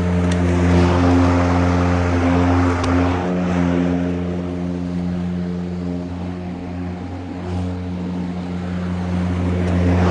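Masport 60V battery lawn mower running and cutting grass: a steady motor-and-blade hum with a hiss of cut grass. It fades as the mower moves away, then grows louder again near the end as it comes back.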